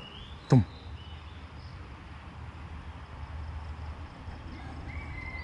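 Pond-side outdoor background: a steady low rumble with a few faint bird chirps. About half a second in comes one short, loud 'tum' with a falling pitch.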